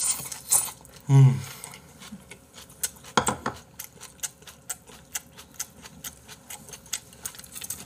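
Close-miked eating sounds: chewing with many short wet clicks and crunches, several a second. About a second in there is a brief low hum of a voice.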